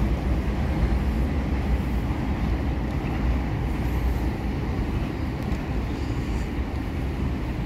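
Steady low rumble of riding a city bicycle on asphalt: wind buffeting the microphone over the hum of the tyres rolling.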